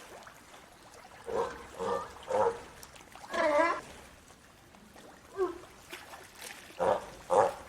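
Sea lion barking: about seven rough, pitched barks in irregular groups, three quick ones, then a longer call, then a single bark and a final pair.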